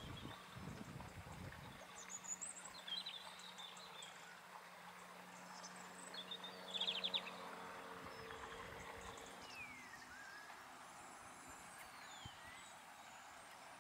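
Faint outdoor ambience with scattered bird calls: short chirps, a brief rattling call about seven seconds in and falling whistled notes near the end. A low rumble runs through the first two seconds, and a faint steady hum sits under the middle part.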